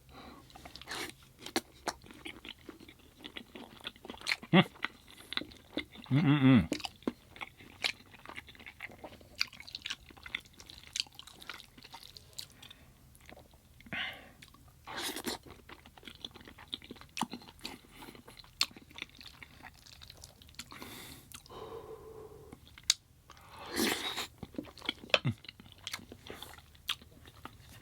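Close-miked eating: chewing and crunching of food with many wet mouth clicks, and a short hum about six seconds in.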